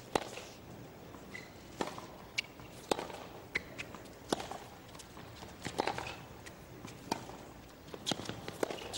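Tennis ball struck back and forth in a baseline rally on a hard court: a sharp pock about every second and a half, with players' footsteps and short shoe squeaks between the shots.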